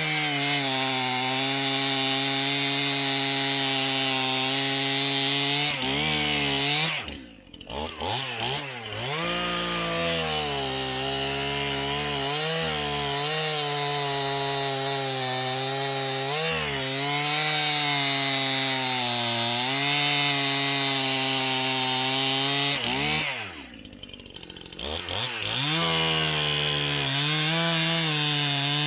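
Stihl MS 271 Farm Boss two-stroke chainsaw at full throttle cutting through a log into firewood rounds, its engine note wavering under load. Twice the throttle is let off and the revs fall sharply, then the saw revs straight back up into the cut.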